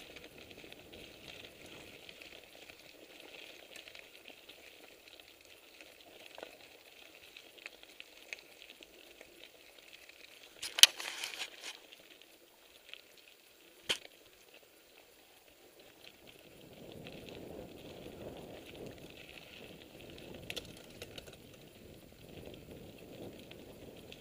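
Mountain bike rolling fast over gravel singletrack: steady crackling tyre noise and rattling over the bumps, with a sharp loud clatter near the middle and a smaller knock a few seconds later. The rolling noise gets fuller and louder in the last third.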